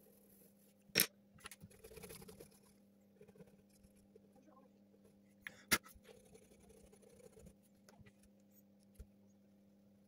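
Graphite pencil scratching faintly on drawing paper, with two sharp clicks, one about a second in and one near six seconds, as drawing tools are handled and changed.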